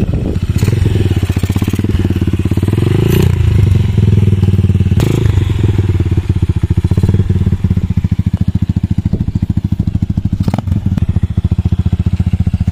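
KRY 200 dirt bike engine running close by: the revs rise and fall through the first few seconds, then it settles into a steady idle. Two sharp clunks cut through, about five seconds in and again near ten seconds.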